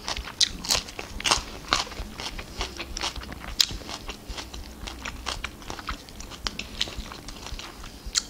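Close-up chewing of crisp fresh lettuce leaves and mushroom salad with walnuts: a quick, irregular run of crunches.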